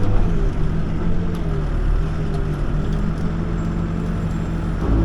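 Backhoe's diesel engine running at working speed while digging, its pitch wavering slightly as the hydraulics take load. A low thump near the end.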